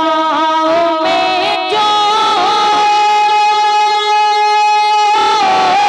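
A man singing a naat into a stage microphone. The voice turns in quick wavering ornaments for the first two seconds, then holds one long high note steady for about three seconds, and it breaks back into wavering near the end.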